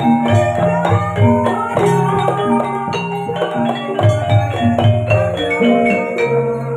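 Javanese ebeg accompaniment music: an ensemble of struck pitched percussion playing quick, ringing notes in an even rhythm over a repeating low beat.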